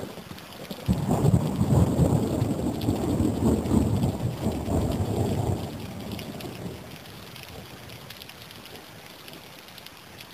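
Thunder over steady falling rain: a loud rolling rumble breaks out about a second in, holds for several seconds, then dies away, leaving the steady hiss of the rain.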